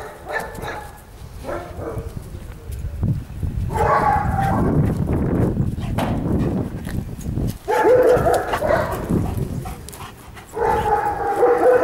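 A dog vocalising in three drawn-out, pitched bouts, about four, eight and eleven seconds in, over a low rumble.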